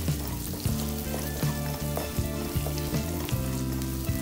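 Chopped garlic sizzling as it fries in melted butter in a nonstick kadai, stirred with a wooden spatula that scrapes and taps the pan now and then. Soft background music plays underneath.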